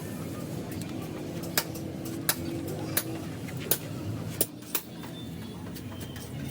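Hammer blows in a car body repair, struck at an even pace of about one every 0.7 seconds, five sharp strikes and a lighter one, over a steady low hum.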